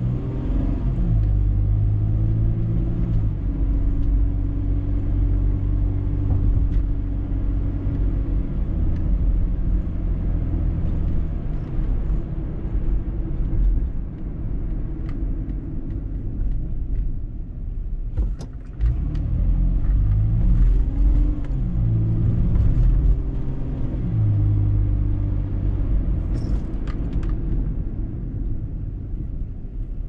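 Car's engine and road rumble heard from inside the cabin as it drives city streets. The engine note climbs in steps as the car accelerates through the gears, eases off, and climbs again after a brief lull just past the middle.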